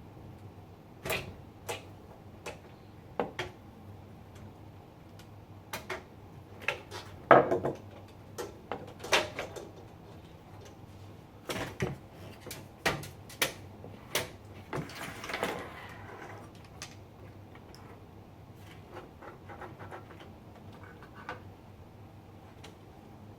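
Hands working on a PC during disassembly: irregular clicks, taps and knocks of parts being handled, with a louder knock about seven seconds in and a brief rustle around fifteen seconds.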